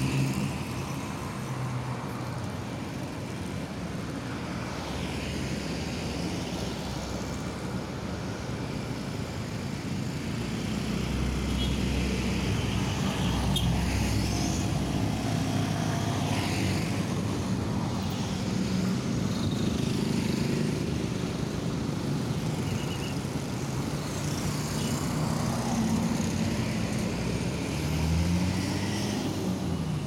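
Highway traffic: motorbikes, cars and trucks going by one after another, the noise swelling and fading as each passes.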